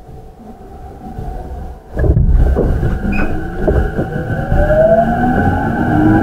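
Running sound from inside a JR East E233-7000 series motor car with a Mitsubishi IGBT VVVF inverter. It is quiet at first, then the running noise comes in with a click about two seconds in, and the inverter and traction motor whine rises in pitch as the train accelerates.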